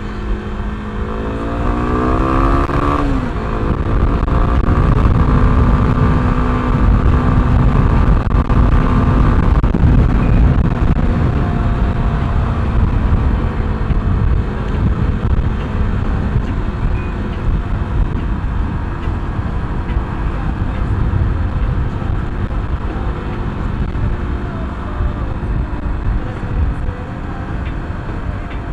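A motorbike's engine pulls up through the revs for about the first three seconds and then runs steady at cruising speed, under heavy low wind and road rumble.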